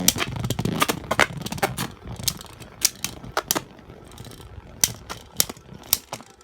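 Two spinning Beyblade tops clashing in a plastic stadium: a rapid, irregular clatter of hits over a low whir, thinning out to scattered sharp knocks as the tops slow.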